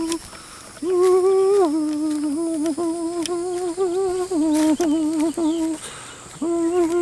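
A man imitating a motorcycle engine with his voice: a hummed engine drone held on one pitch that wobbles up and down, broken by two short pauses.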